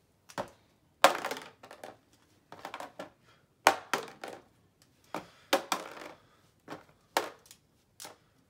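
A small plastic die thrown into a plastic Beyblade stadium, clattering and bouncing in quick runs of clicks several times over, each run starting loud and dying away as the die settles.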